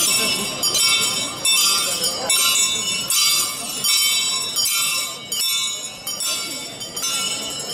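Bells rung over and over at about one ring a second. Each ring is a cluster of high, bright tones that sounds again before the last has died away.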